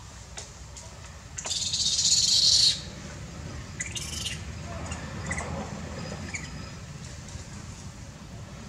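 Birds calling in the forest: a loud, harsh, high call about a second and a half in that lasts just over a second, a shorter one a couple of seconds later, then a few faint chirps, over a steady low rumble.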